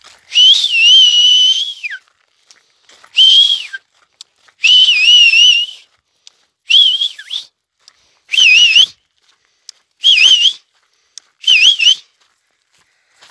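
A person whistling loudly to call dogs: seven whistles with short pauses between, some drawn out for a second or more and others brief, each wavering up and down in pitch.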